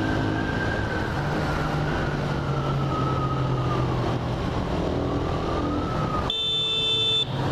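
Suzuki Raider 150R motorcycle under way: engine running with wind and road noise, and a thin whine that slowly falls in pitch. Near the end a steady, high-pitched beep lasting about a second cuts across it.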